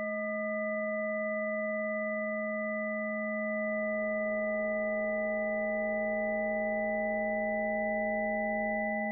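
Electroacoustic microphone–loudspeaker feedback, computer-processed: several steady pure tones sound together, from a low hum up to a high whistle. About three and a half seconds in, a lower wavering tone and a faint low rumble join.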